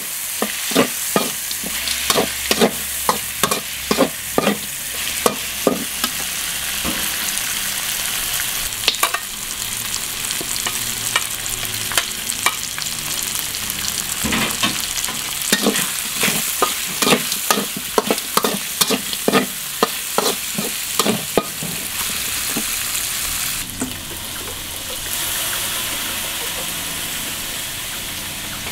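A metal spatula scrapes and knocks against a steel wok as chopped frog meat with chilies and garlic is stir-fried, over a steady sizzle of hot oil. The strokes come in runs of about two to three a second, at the start and again midway, with only the sizzle between them.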